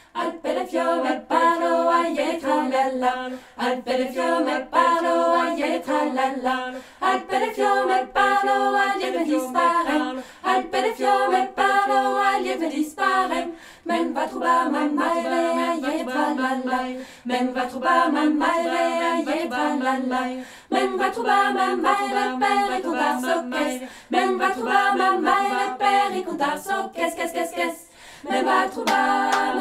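A cappella choir singing, in short phrases with brief pauses between them.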